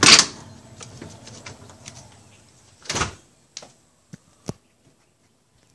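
Handling noise: a loud rustle at the start, a brief scrape about three seconds in, then a few sharp clicks.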